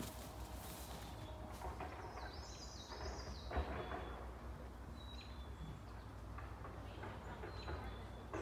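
Outdoor ambience of songbirds singing over a steady low rumble, with a run of high stepped notes about two to three seconds in and a few short chirps later. A brief knock sounds about three and a half seconds in.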